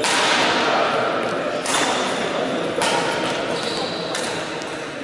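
Badminton rally: a racket strikes the shuttlecock three times, near the start and at about 1.7 and 2.8 seconds in. Each hit is a sharp crack that rings on in the echo of a large sports hall.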